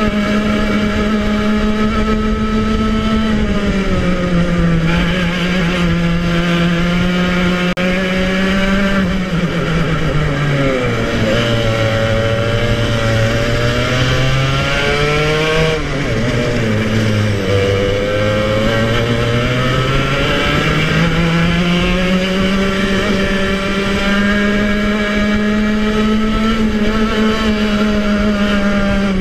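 Club100 kart's 115cc TKM two-stroke engine at racing speed, its pitch falling as the kart slows for corners and climbing again as it accelerates. The note drops low twice near the middle, then rises back to a high, steady pitch for the last several seconds.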